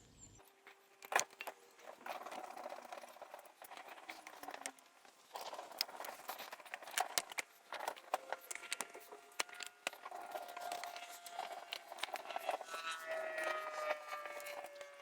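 Irregular metal clinks, knocks and scraping as a Honda CB250RS engine is manoeuvred into its motorcycle frame, with some drawn-out scraping squeaks near the end.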